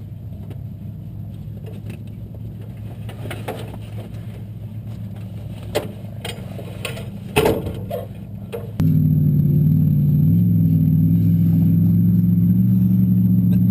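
Off-road race car engine running low and steady, with a few sharp metallic clicks and a knock. About nine seconds in, a much louder engine rumble comes in suddenly and holds steady.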